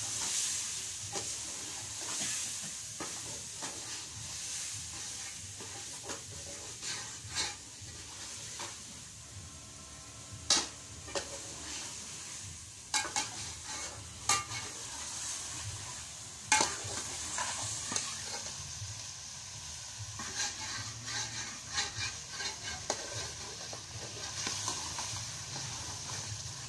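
Meat and masala frying with a steady sizzle in an aluminium pot, stirred with a steel spoon that scrapes and clinks against the pot, with a few sharper knocks near the middle.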